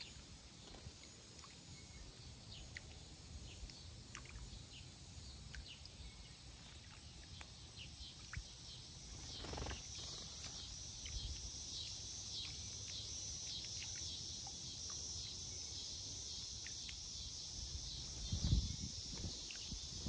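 Outdoor feeder ambience: scattered short, high bird chirps over a steady high insect buzz that grows louder about halfway through. There is a soft knock about halfway and a louder low bump near the end.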